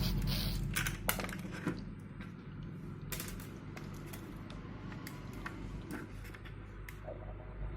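Scattered small clicks, taps and light clatter of hand tools and parts being handled while a large speaker is taken apart, more of them in the first couple of seconds. A steady low hum runs underneath.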